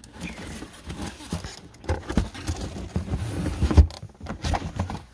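Cardboard boxes being shifted and handled: rustling, scraping and irregular knocks, with a heavier dull thump a little before four seconds in.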